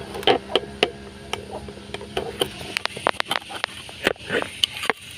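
Irregular clicking 'kek-kek' from a Suzuki Carry's steering tie rod rubbing against the sheet-metal panel beside it as the steering is turned. A steady low hum fades out about halfway through.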